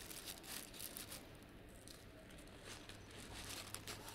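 White plastic spoon cutting into a layered strawberry mille-feuille cake on a paper towel: a faint, irregular run of small crackles and rustles as the pastry layers and paper give way.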